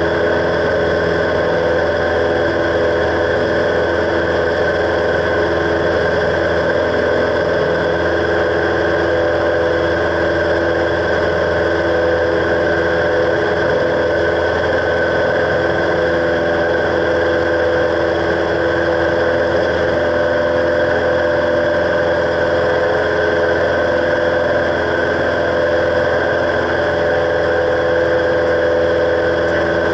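Cessna 172's piston engine and propeller running at a steady, unchanging power during the climb after takeoff, heard inside the cabin.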